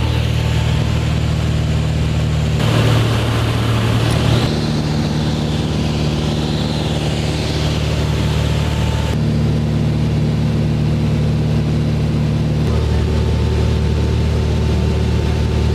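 Single-engine Cessna's piston engine and propeller droning steadily, heard from inside the cabin in flight. The drone's pitch changes abruptly a few times.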